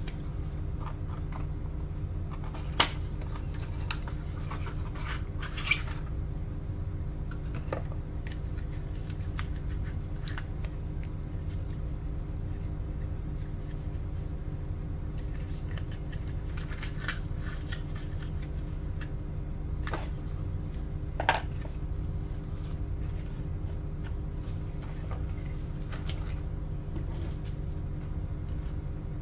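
Cardboard packaging being handled: scattered rustles and small clicks from the flaps and inserts of a white paper box, with three sharper taps about 3, 6 and 21 seconds in. A steady low hum runs underneath.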